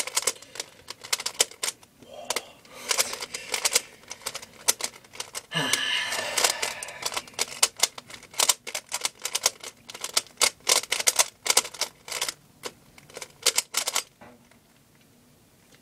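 Plastic 3x3 Rubik's cube being turned quickly by hand, its layers clacking in rapid runs of clicks as it is scrambled for the next solve. The clicking stops near the end.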